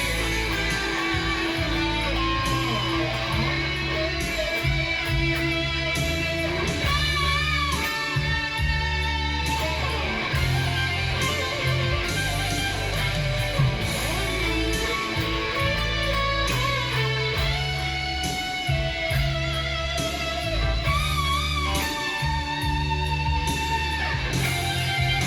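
Guitar playing a melodic line of held notes with vibrato over a backing track with steady bass and drum hits.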